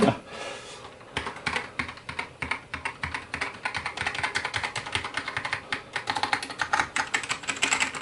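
MacSense USB keyboard's keys pressed one after another in a quick run of keystroke clacks, several a second, starting about a second in: a key-by-key test of the repaired keyboard across the number row and top letter row.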